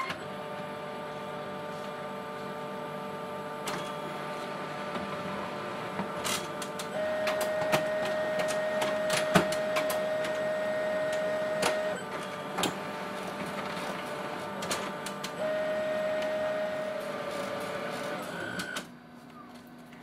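HP Color LaserJet 3600n colour laser printer running its automatic calibration for newly fitted toner cartridges: motors whirring steadily, with a louder whine for several seconds from about a third of the way in and again briefly later, and scattered clicks. It all stops shortly before the end.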